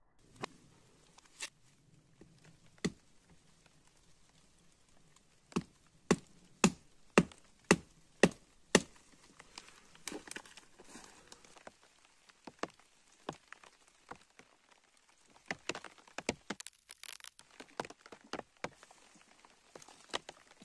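A knife chopping at a green wooden stick: sharp knocks, with a run of six loud strokes about half a second apart near the middle, then softer scattered cracks and the rustle of leaves and twigs.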